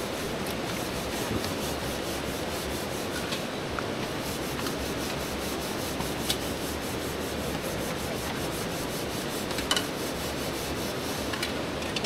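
Pots and metal dishes scrubbed by hand in basins: a steady rubbing, scrubbing noise with a few sharp clinks of metal.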